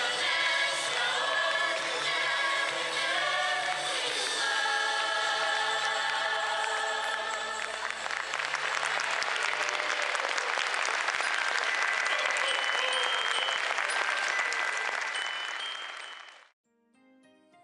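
Group singing with music, ending about halfway through, then audience applause that swells, fades and cuts off shortly before the end.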